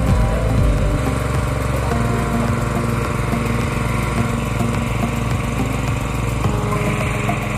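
Small single-cylinder gasoline engine of a hydraulic pump set running steadily at constant speed, easing slightly about a second in.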